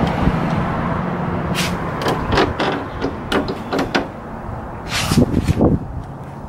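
A series of sharp clicks and knocks as a metal bow-tie emblem is pushed and wiggled into the plastic grille of a Chevrolet Silverado. A steady low hum fades out after about two seconds.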